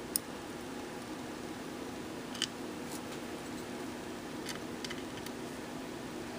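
A few faint, light clicks of small lock pins and hand tools being handled on a desk, scattered over a steady low hum.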